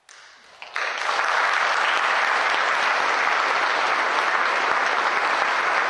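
Audience applause: a few first claps, then the whole audience joins in about a second later and keeps clapping steadily.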